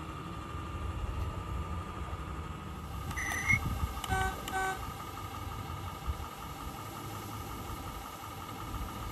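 Model garden-railway diesel locomotive's horn giving two short toots about four seconds in, just after a brief squeak and a knock, over a steady whine and low rumble.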